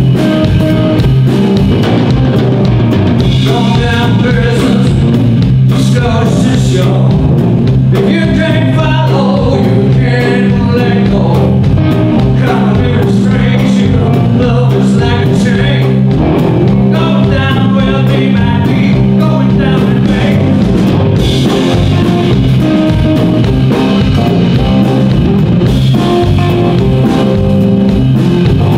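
Live blues band playing: electric guitars over a drum kit, with a man singing through much of the middle.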